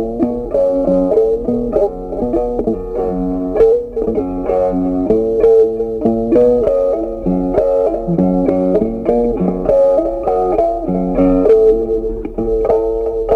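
Background instrumental music with a steady melody.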